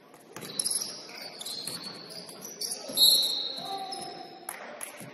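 Basketball shoes squeaking on the court: several short high squeaks, the loudest about three seconds in. A basketball bounces a few times among them.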